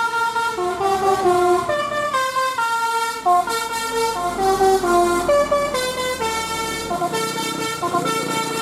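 Indonesian bus 'telolet Basuri' musical air horn, a set of roof-mounted trumpets, playing a quick melody of stepped notes, each held about half a second.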